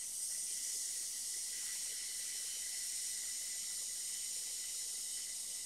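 A person breathing out in one long, steady, sharp 'sss' hiss through the teeth: the lung sound of the qigong six healing sounds, made on the out-breath.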